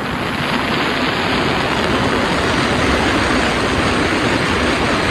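Jet ski running at speed across open water: a steady, even rushing noise of engine and water spray.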